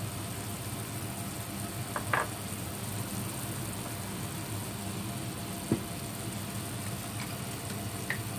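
A spatula stirring minced beef in chili sauce in a nonstick pan over a steady low hum: a short scrape about two seconds in, and a sharp knock of the spatula against the pan a little before six seconds.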